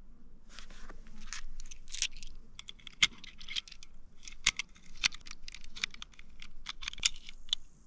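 Brass pistol cartridges being pressed one by one into a single-stack 1911 pistol magazine. They make a quick run of sharp metallic clicks and short scrapes as each round snaps under the magazine lips.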